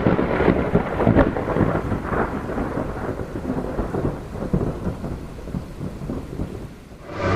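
A rumbling, crackling noise that is loudest at the start and dies away over about seven seconds.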